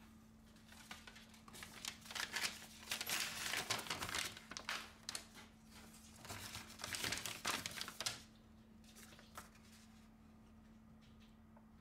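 Paper being handled and crinkling, in two spells of crackly rustling that stop about eight seconds in, over a faint steady electrical hum.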